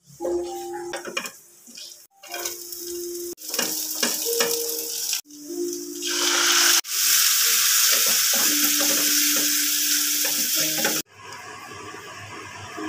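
Sauce sizzling and being stirred in a hot frying pan, in several short cut-together stretches. A loud, steady sizzle runs for about four seconds after the sauce is poured into the hot pan with garlic and onion, then cuts off abruptly.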